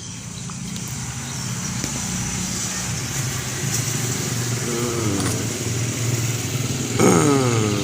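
A motor vehicle's engine swelling steadily louder as it approaches, then dropping in pitch as it passes about seven seconds in.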